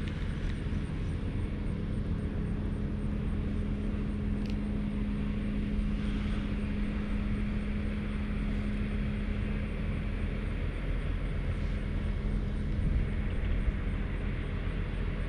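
Steady low mechanical rumble with a humming tone that fades out about ten seconds in.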